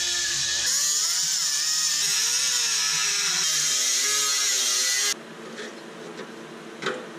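Power tool cutting steel: a loud hiss with a wavering motor whine that cuts out about five seconds in, after which a few light clicks are heard.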